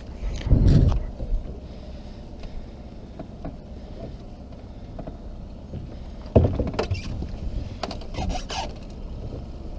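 Wind rumbling on the microphone over a small open boat, with handling knocks from rod and gear against the hull. There is a heavy low thump about half a second in and a sharp knock about six seconds in, followed by a few smaller clicks.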